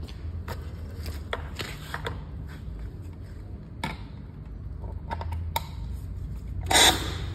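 A short, loud hiss from a hand spray bottle spraying near the end, over a steady low hum with scattered light clicks.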